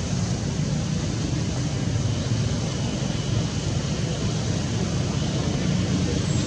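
Steady low outdoor rumble with a fainter hiss above it, unbroken and without distinct events.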